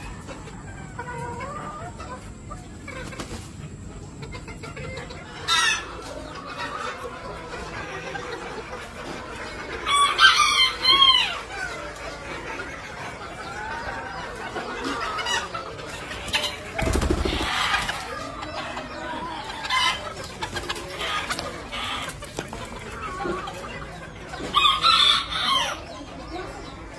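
Bantam chickens clucking, with a rooster crowing loudly twice: once about ten seconds in and again near the end.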